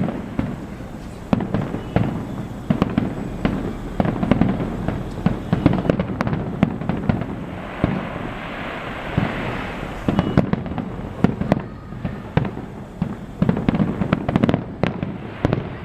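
Fireworks display: many sharp bangs and booms in quick, irregular succession, with a stretch of dense crackling hiss about eight seconds in.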